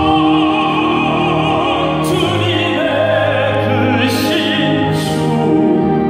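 A man singing a slow gospel hymn into a microphone over held low accompaniment, amplified through a church sound system.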